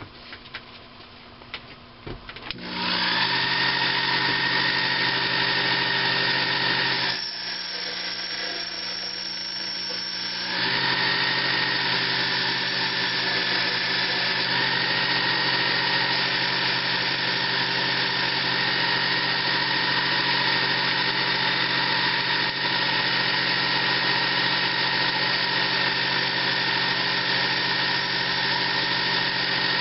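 Small Sherline mini lathe's motor starting about two and a half seconds in, then running steadily with a whine, turning an aluminum part while the tool is fed in by hand; the sound drops in level for a few seconds around the middle, then returns.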